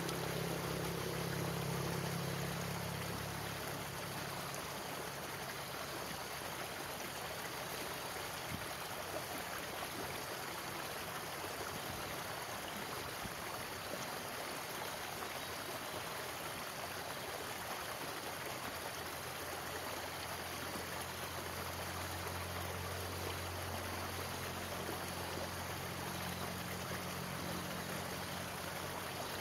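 Shallow stream rushing over rocks below a culvert: a steady, even rush of water. A low steady hum sits under it at the start and comes back for roughly the last third.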